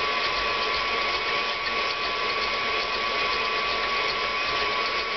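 Electric stand mixer running steadily with its wire whisk attachment, cutting cold butter into flour: a steady motor whine with fine, rapid ticking.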